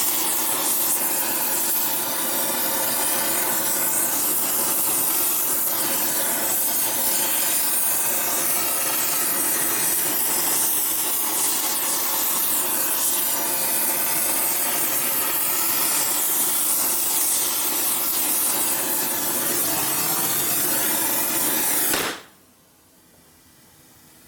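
Gas torch flame hissing steadily while heating a panhead cylinder head ahead of welding, then shut off abruptly about 22 seconds in, leaving only a faint hiss.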